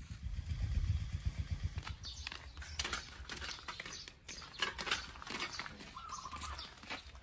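Footsteps on a dirt path with woven bamboo baskets and traps knocking and rattling as they are carried, after a low rumble on the microphone that stops about two seconds in.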